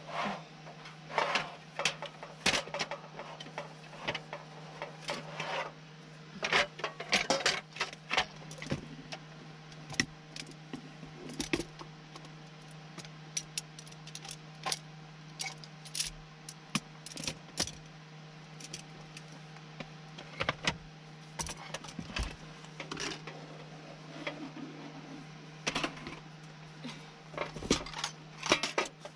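Cooking gear being handled and packed into a wooden storage box: irregular clatter, clinks and knocks as an electric grill plate, plastic containers and a utensil tray are set down and shuffled, over a steady low hum.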